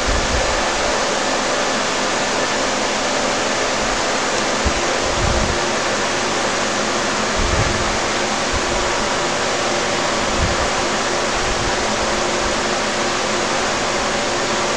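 A steady rushing hiss with a faint low hum underneath, broken by a few soft low thumps of the handheld phone being moved, about five, seven and a half and ten seconds in.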